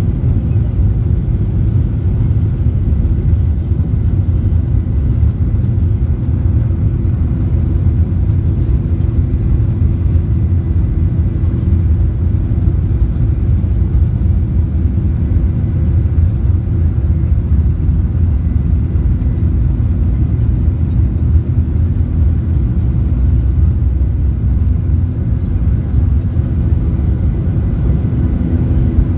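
Airplane engine noise: a steady, loud, low rumble with a few faint steady tones over it, holding an even level without rising or falling.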